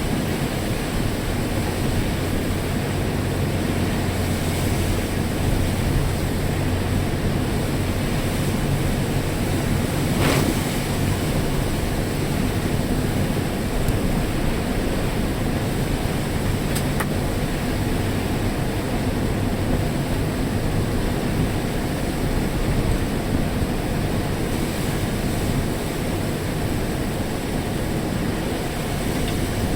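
Heavy typhoon rain pouring down steadily, a dense even hiss, with a faint low hum beneath it. A brief sharp click about ten seconds in.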